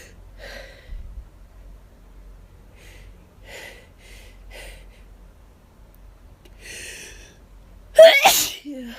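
A person's hayfever sneeze: a few quiet sniffs and a drawn-in breath, then one loud sneeze about eight seconds in, trailing off in a short falling voice sound.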